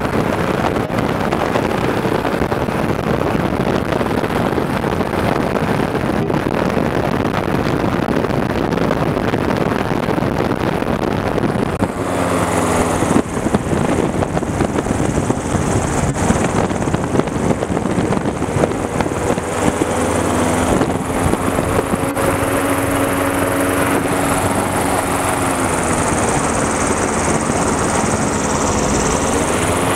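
Powered parachute's engine and propeller running steadily in flight. About twelve seconds in the engine note changes and settles into a clearer hum, then dips in pitch and rises again near the end as the craft comes down low over the landing field.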